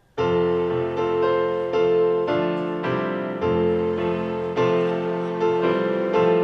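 Piano starts playing abruptly just after the start: a slow sequence of struck chords, each held and fading a little before the next.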